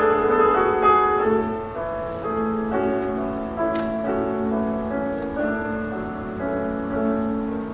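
Instrumental guitar music, several notes sounding together and changing every half second or so, slowly getting quieter.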